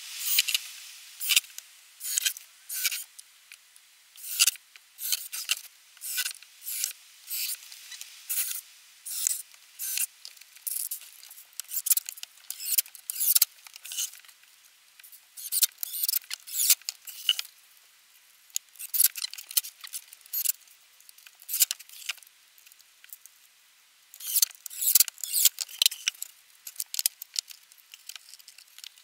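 Short offcuts of thermo-treated wooden sauna panel being handled and set in place around a wooden box frame: irregular light clacks, taps and scrapes of wood on wood, in quick clusters with brief pauses.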